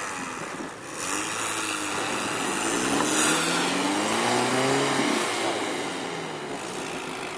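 Chevrolet Niva's engine revving hard with its wheels spinning in deep snow as it is towed on a rope and pushed out. The revs climb over about two seconds and drop back about five seconds in.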